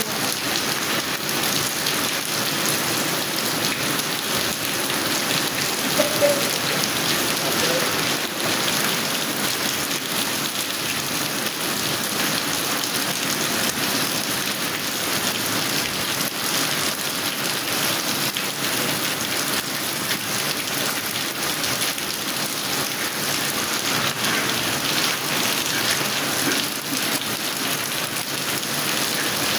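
Heavy rain falling steadily, splashing into puddles on a wet paved yard: an even, unbroken hiss of rain.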